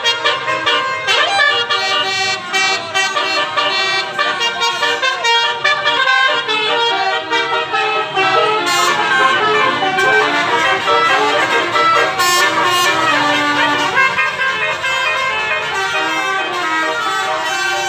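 Several basuri telolet horns, multi-tone musical vehicle horns, playing quick stepping tunes that overlap and answer each other without a break.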